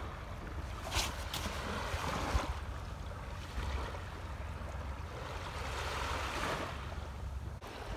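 Small waves washing onto a sandy shore, the rush swelling and fading a few times, with wind rumbling on the microphone. A couple of brief clicks about a second in.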